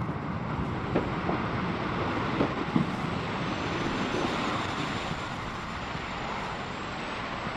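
Falcon 9 first stage's nine Merlin 1D engines during ascent: a steady rumble with a few faint crackles.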